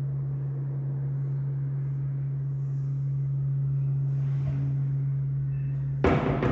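Background music: a sustained low drone note, then a loud drum hit about six seconds in.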